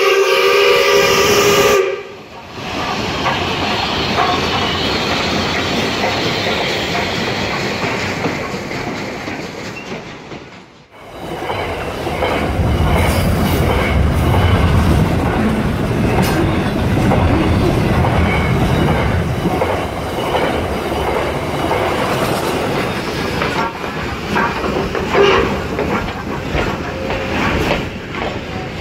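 A model locomotive's horn sounds for about two seconds, then model trains run close by: a steady rumble and clatter of small wheels on the track. After a short break about eleven seconds in, the rumble comes back lower and heavier, with many small clicks.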